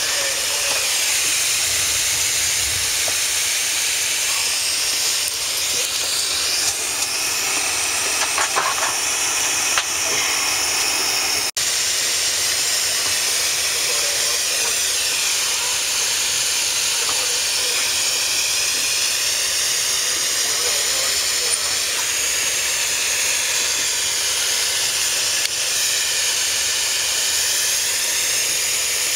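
Steady hiss of airflow from a Bombardier CRJ-700 airliner's cabin air-conditioning, as heard in the cabin. The sound cuts out for an instant about eleven seconds in.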